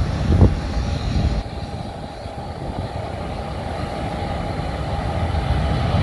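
Boeing 737's jet engines at takeoff thrust on the runway, a distant rumble with a steady whine that grows gradually louder as the jet rolls toward the microphone. Wind buffets the microphone during the first second or so.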